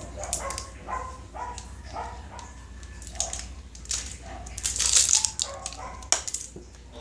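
Small plastic surprise-egg capsule and toy pieces being handled: light clicks throughout and a louder plastic crinkle about five seconds in. Short high yelps repeat about every half second in the background.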